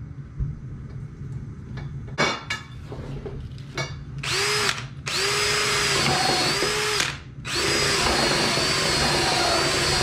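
Cordless drill running in three bursts of one to three seconds each, a steady motor whine, turning against the end of a copper pipe. A few clicks and scrapes from handling the pipe come before it.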